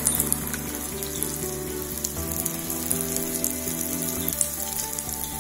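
A urad dal vada deep-frying in hot oil in a pan, a steady sizzle full of small crackles and pops, with background music underneath.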